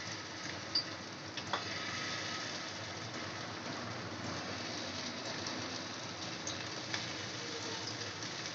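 Marinated sardines shallow-frying in hot oil, a steady sizzle with a few sharp pops, as more fish are laid into the pan.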